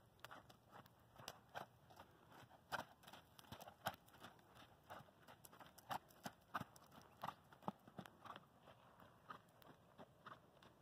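Faint hoofbeats of a horse trotting on sand: soft, crunchy footfalls, a few a second, unevenly spaced.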